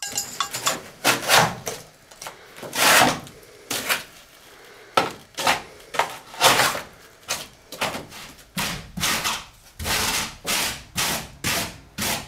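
A hand tool scraping expanded polystyrene in some twenty uneven strokes, some short and some drawn out over a second or more, as the foam is shaped.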